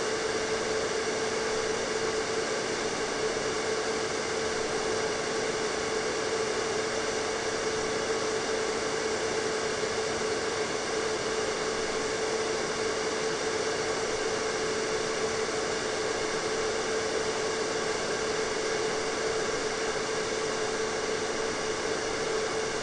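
Hair dryer running steadily: a constant rush of air over a motor hum that never changes.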